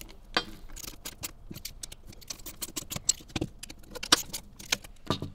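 5 mm Allen key and 10 mm socket working M6 cap screws and flange nuts tight on a metal bracket: irregular light metallic clicks and ticks of the tools against the hardware, a few of them louder.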